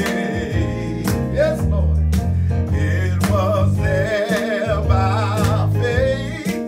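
A man singing a worship song with vibrato, accompanying himself on a Roland RD-300 stage piano with held chords and low bass notes.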